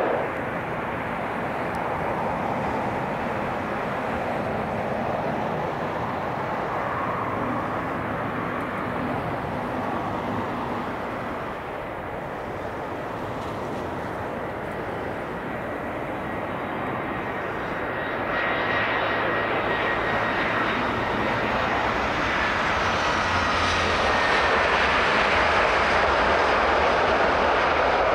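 Airliner engines heard over several cuts: an ATR 72 turboprop on the runway, then easyJet Airbus A320-family jets approaching and rolling down the runway. Steady engine noise that grows louder with a high, slightly falling whine in the last ten seconds.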